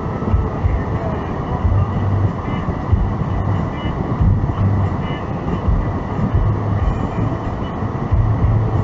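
Steady low rumble of a car heard from inside the cabin, with a deeper hum that swells and fades every second or two.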